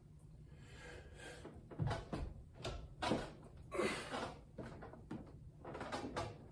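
A run of irregular knocks and clanks from gym weights being handled, loudest about two and three seconds in.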